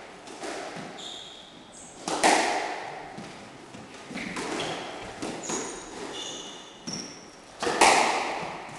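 A squash rally: the ball is struck by rackets and smacks off the court walls and floor in a string of sharp, echoing hits, the loudest a little after two seconds in and near the end. Short high squeaks of court shoes on the wooden floor come between the hits.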